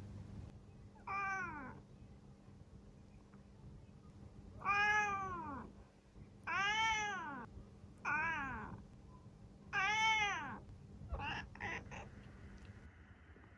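Domestic cat meowing: five drawn-out meows, each rising then falling in pitch, followed near the end by three short, clipped meows.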